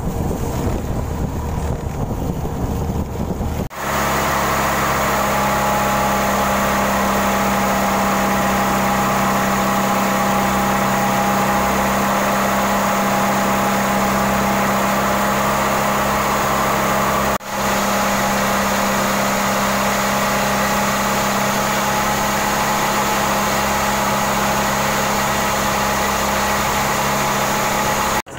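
Wind and water rushing along a wooden boat's hull under way. After a few seconds this gives way to a Mitsubishi PS 100 four-cylinder diesel marine engine running steadily, heard close up in the engine bay, with an even, unchanging drone.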